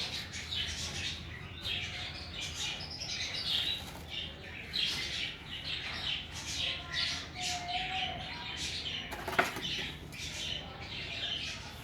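Small birds chirping and twittering in many quick, short calls, with soft rustling of soil being added into a coconut-fibre hanging basket, and one sharp click about nine seconds in.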